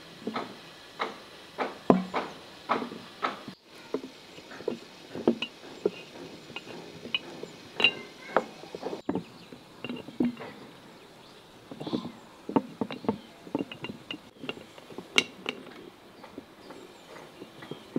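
Cooked eggplants being packed into large glass jars: irregular soft knocks and glass clinks as hands and a wooden spoon press them down against the jar.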